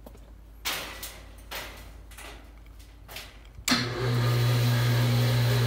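A few scuffs and knocks inside a steel mesh lift cage, then, about two-thirds of the way in, the homemade freight lift's electric motor starts with a sudden jolt and runs with a loud, steady low hum as the lift rises.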